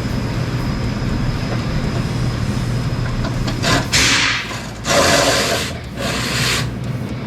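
Three rubbing, scraping noises, each under a second, as the radiator is slid and worked out of its mounting, over a steady low hum.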